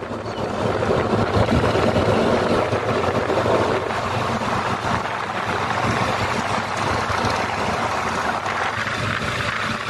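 Steady rush of wind and road noise from travelling at speed on a paved road, with a low, even engine drone underneath.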